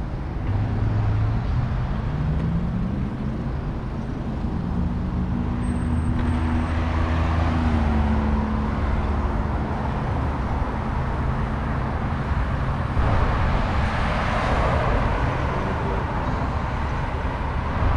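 Street traffic at a city intersection: vehicle engines running, with one engine note rising a couple of seconds in as a vehicle pulls away, and a louder wash of passing-vehicle noise toward the end.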